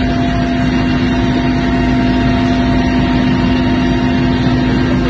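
Steady engine drone of an aircraft in flight, heard from inside the passenger cabin: a few fixed hum tones over an even rushing noise.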